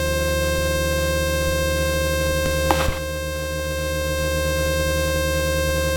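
Light aircraft engine drone heard in the cockpit, a steady hum with many fixed tones. About three seconds in there is a brief blip, the level drops a little and then slowly builds back.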